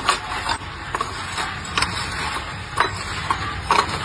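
Small ceramic tiles clacking against each other as they are gathered and stacked by hand, a series of irregular sharp clicks and knocks over steady background noise.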